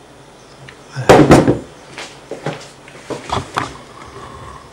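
Vacuum coffee jug and cups being handled on a wooden worktop. A loud double clunk comes about a second in, then several lighter knocks and clicks.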